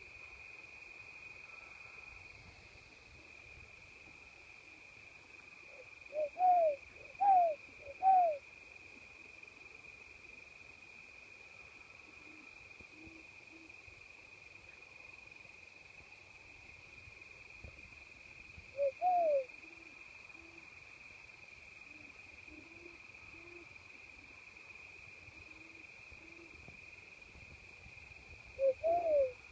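A person whistling owl calls: short rising-and-falling notes, three in quick succession about six seconds in, one about two-thirds through and two near the end, with faint low hoots from owls between them. A steady chorus of crickets runs underneath.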